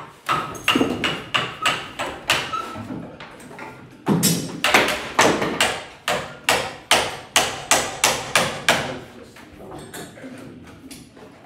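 Hammer and wooden mallet blows on wood, sharp strikes coming about two to three a second, as a steamed Douglas fir plank is worked onto a wooden bending jig. The blows thin out and fade near the end.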